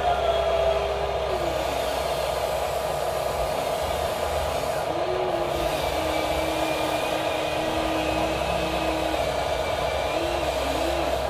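Huina RC excavator's electric motors whining steadily as the arm lowers and the bucket digs into sand, the whine's pitch stepping up and down several times as the controls change.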